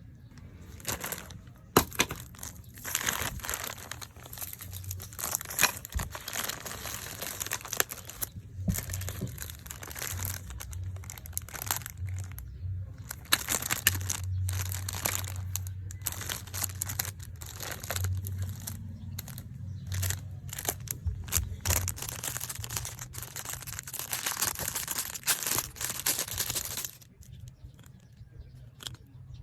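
Packaging being handled and opened: continuous crinkling and rustling with some tearing and sharp crackles, which dies down near the end.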